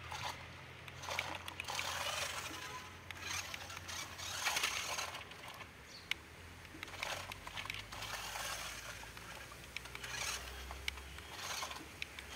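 Toy RC rock-crawler truck driving over gritty dirt, its tyres crunching and scraping along with its electric drive motors. It runs in several short bursts, with scattered clicks.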